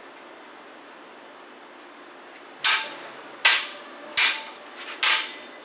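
Fencing sabres' steel blades clashing four times, starting about two and a half seconds in and about a second apart, each a sharp metallic strike with a brief ring.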